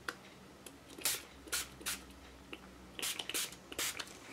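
Tattered Angels Glimmer Mist finger-pump spray bottle spritzing mist onto watercolour paper: a series of short hissing spritzes, a few spaced out over the first two seconds and a quicker cluster about three seconds in.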